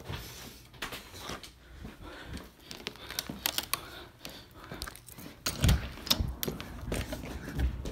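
Rustling and scattered clicks of things being handled and carried while walking, with a couple of heavier thumps in the second half.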